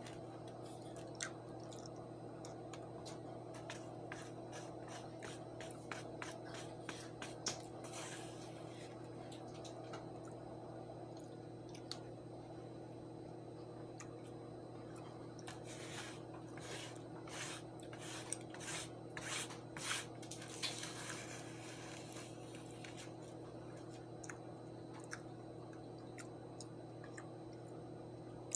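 Soft eating sounds: a spoon clicking and scraping on a plate, with chewing, as small scattered clicks that come in a quicker run about two-thirds of the way through. A steady low hum lies under it all.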